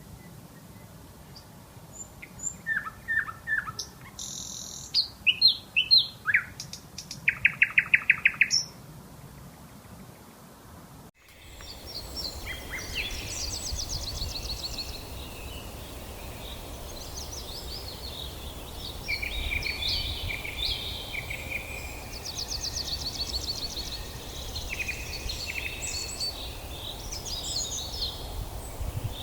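Wild songbirds chirping. At first single loud chirps come with a fast trill of repeated notes. About eleven seconds in the sound changes abruptly to a denser chorus of many birds calling over a low steady rumble.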